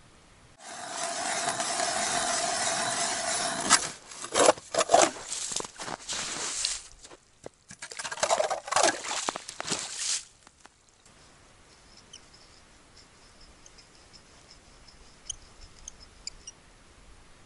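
Hand ice auger cutting into lake ice: a steady grinding scrape for about three seconds, then irregular scraping and sharp knocks, and a second spell of scraping about eight seconds in. The last several seconds are faint, with a few high ticks.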